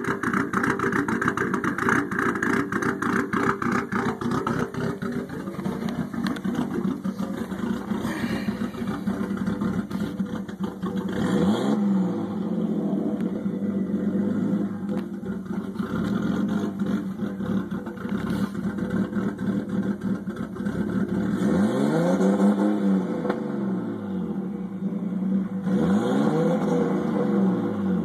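Nissan RB20DET turbocharged 2.0-litre inline-six running at a rough idle. The revs rise and fall slowly a few times: once just before the middle, then twice near the end.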